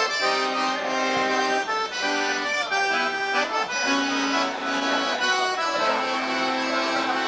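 Piano accordion played solo: a melody of held reed notes that change every half second or so.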